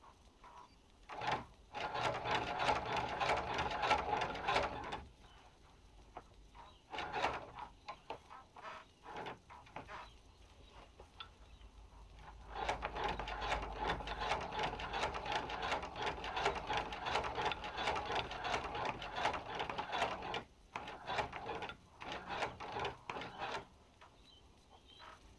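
Hand-cranked Chinese patcher sewing machine stitching leather: rapid clicking and clatter of the needle and feed mechanism in runs as the handwheel is turned. A run of about three seconds comes near the start, then a few short bursts, a long run of about eight seconds in the middle, and shorter bursts near the end.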